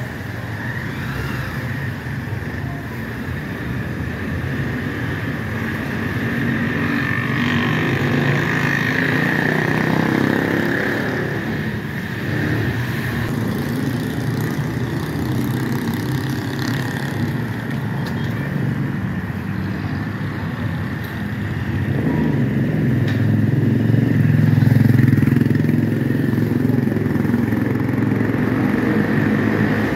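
Road vehicle engine running amid traffic noise, its pitch and level rising and falling, loudest about three-quarters of the way through.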